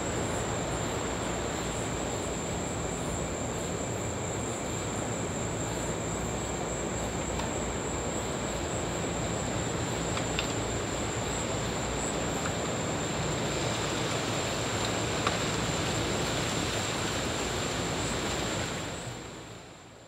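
Ocean surf washing steadily on the beach, a continuous even rush with a thin, steady high-pitched tone above it. It fades out near the end.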